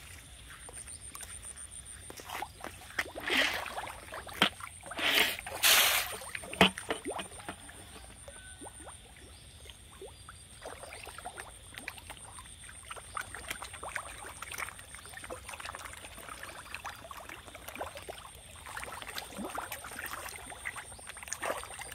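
Fish feed pellets scattered onto a pond, with a few loud splashy bursts a few seconds in. Then many small pops and splashes as the fish come up and take the pellets at the surface.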